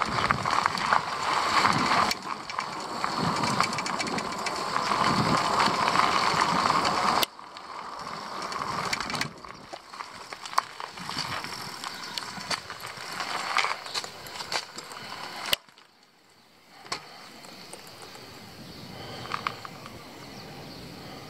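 Bicycle rolling downhill on paved road: a loud, even rushing of tyres and riding noise with scattered clicks and rattles. About seven seconds in it drops abruptly to a quieter rolling sound, and a little past the middle it falls nearly silent for about a second before settling at a steady lower level.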